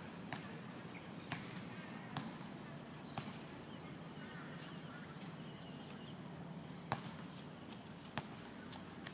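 Faint outdoor ambience: a steady high thin whine over a soft hiss, with a few scattered light clicks or ticks about a second apart.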